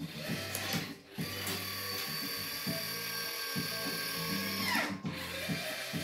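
Electric lift motor on a remote-control snowblower's plow running with a steady whine as it raises the blade. It falls in pitch as it stops near the five-second mark, then starts again briefly.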